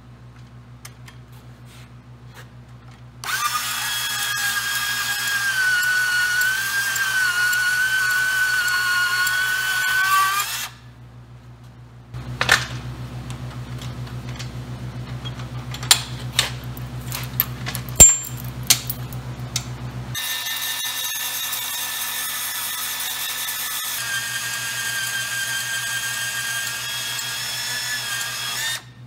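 Milwaukee portable band saw running and cutting through steel square tubing, with a steady whine. It makes two cuts of about seven and eight seconds, with a spell of sharp metallic knocks between them.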